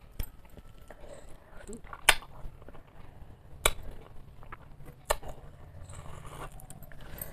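Close-miked eating sounds: chewing, and fingers picking food off a stainless steel plate, with four sharp clicks about a second and a half apart.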